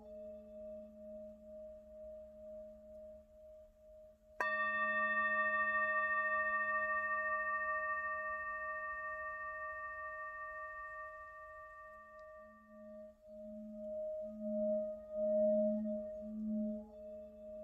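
Singing bowl meditation music. A low, wavering hum pulses steadily, then about four seconds in a bowl is struck and rings out with several overtones, fading over some eight seconds, before the pulsing hum swells again near the end.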